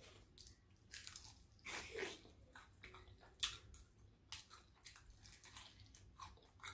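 A person biting into and chewing a crispy fried chicken wing: faint, irregular crunches.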